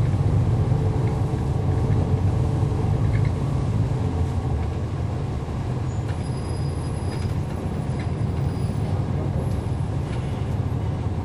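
Cummins ISL9 diesel engine of a 2011 NABI 40-SFW transit bus, heard from on board with a steady low rumble that eases slightly about halfway through.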